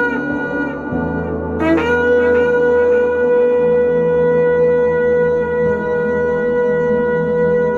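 Shofar blowing long held notes: one blast ends just under a second in, and after a short break a new blast slides up into a long steady note.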